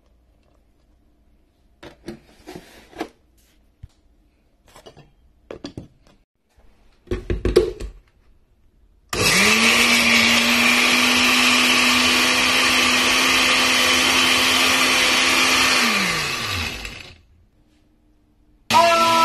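Countertop blender with a red base blending milk, ice cream and cereal into a milkshake: the motor starts abruptly about halfway through, runs at a steady pitch for about seven seconds, winds down and stops, then is switched on again just before the end. Before it starts, a few scattered knocks and clicks.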